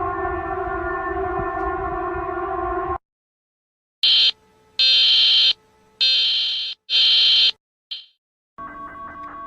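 A sequence of electronic alarm tones. First a steady chord-like alarm tone cuts off about three seconds in. After a second of silence come four loud, high-pitched beeps about a second apart and a short fifth one. Near the end a quieter, rapidly pulsing alarm tone starts.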